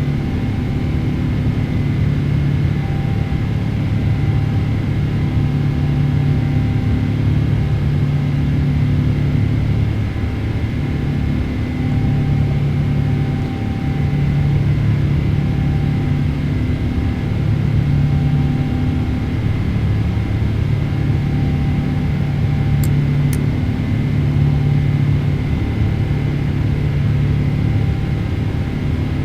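Cabin noise of a Boeing 777-300ER in climb: a steady rush from its GE90 jet engines, with a low hum that swells and fades every couple of seconds.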